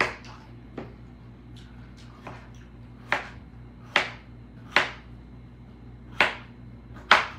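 Small serrated kitchen knife cutting cucumber into pieces, the blade knocking sharply on a plastic cutting board about seven times at irregular intervals.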